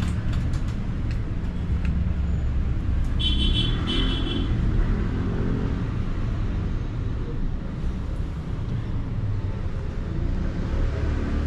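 Steady low rumble of road traffic, with a brief high-pitched tone about three seconds in.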